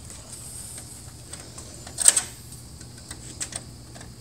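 Screwdriver working screws out of a laser printer's sheet-metal side frame: scattered light metal clicks and ticks, with one sharper click about two seconds in.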